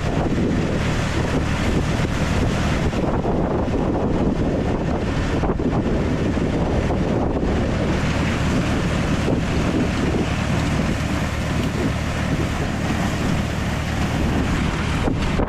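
Tractor engine running steadily under heavy wind noise buffeting the microphone.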